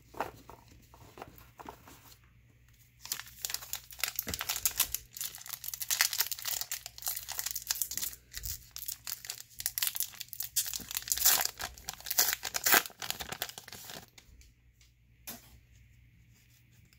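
The plastic wrapper of a 2020 Bowman baseball card pack is torn open and crinkled by hand. A dense run of crackling starts about three seconds in and stops a few seconds before the end, with one last crackle after.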